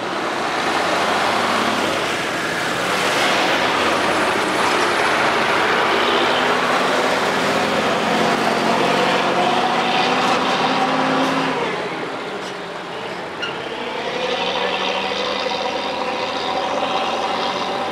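Old trucks and cars driving past in street traffic, their engines running loud and rising in pitch as they pull through the gears. Partway through the noise dips, then another truck engine climbs steadily in pitch as it accelerates away.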